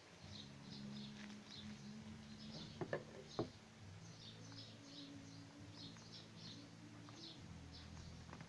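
Plastic speed cube (Yuxin Little Magic) being turned by hand, giving a few sharp clicks about three seconds in. Faint high chirping repeats throughout over a low steady hum.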